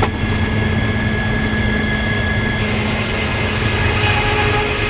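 Sawmill running steadily, a low engine-like hum with a constant whine over it; about two and a half seconds in, a higher hiss joins in and holds.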